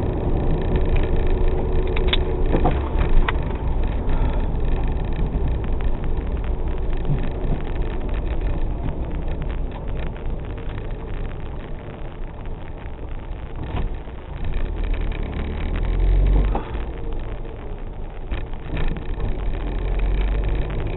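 An MG TF's four-cylinder engine and tyre noise heard from inside the car as it drives slowly, growing quieter about halfway through, with a few low rumbles near the end.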